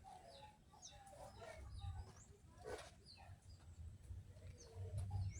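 Faint bird calls: many short high chirps mixed with lower clucking calls typical of chickens, over a low rumble.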